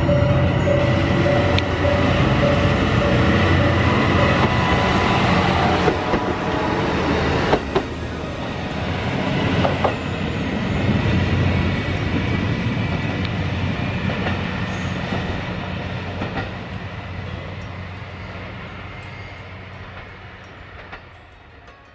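Diesel engine of a yellow JR Kyushu KiHa 125 single-car railcar running as it moves along the track, with a few clacks of the wheels over rail joints. The sound fades away over the last several seconds.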